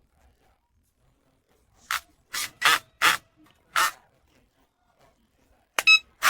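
Five short bursts of hiss, spaced about half a second apart, then near the end a brief sharp sound with a whistling ring and one more short burst.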